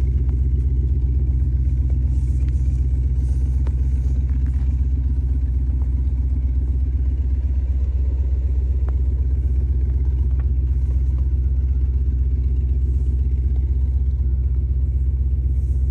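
A vehicle engine running steadily, a low even rumble that does not change pitch, with a few faint ticks over it.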